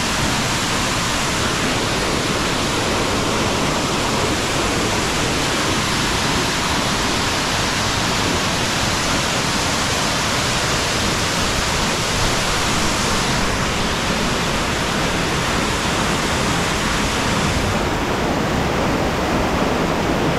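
Loud waterfall: a steady, unbroken rush of falling water. The high hiss softens slightly about two-thirds of the way through.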